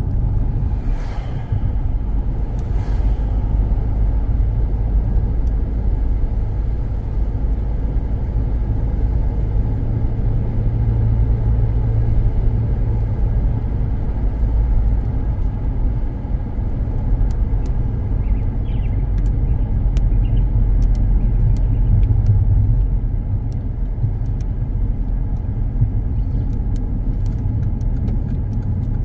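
Car in motion heard from inside the cabin: a steady low rumble of road and engine noise, with a few faint ticks in the second half.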